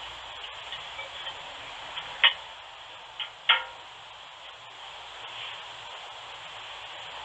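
Steady hiss of a doorbell camera's microphone, broken by a few sharp taps, the two loudest about a second apart near the middle.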